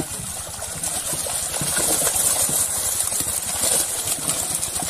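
Many large fish thrashing and splashing in a crowded seine net in shallow pond water, a continuous churning splash. A steady low rumble runs underneath.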